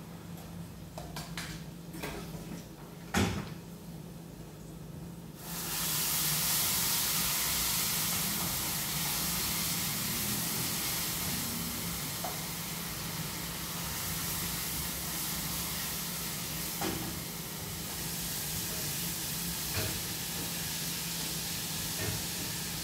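Utensils knock and clink for a few seconds, one knock louder about three seconds in. Then food goes into hot oil in a pan and starts sizzling, a sudden steady frying hiss that carries on while it is stirred.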